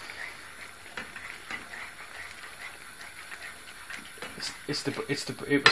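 Low background noise with faint, irregular small ticks and clicks; a man's voice starts about four seconds in.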